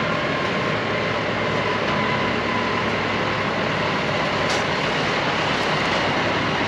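John Deere tractor diesel engines running steadily as the tractors are driven across the steel loading ramp onto the barge, with a faint steady whine.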